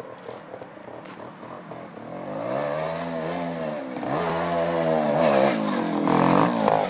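GasGas TXT Pro 250 trials bike's single-cylinder two-stroke engine revving up and dropping back several times as it climbs a dirt bank. It comes in faint about two seconds in and grows louder as the bike nears and passes.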